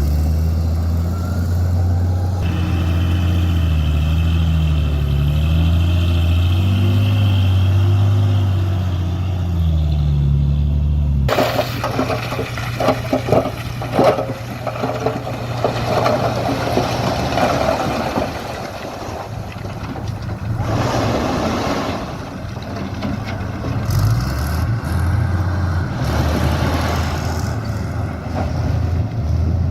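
Heavy diesel dump truck engines running, their pitch rising and falling with the revs. About eleven seconds in the sound cuts abruptly to a different stretch: a lower engine hum with rattling, clattering and rushing noise on top.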